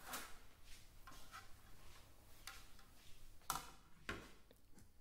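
A few faint, scattered clicks and light knocks, about six over the few seconds, the strongest about three and a half seconds in.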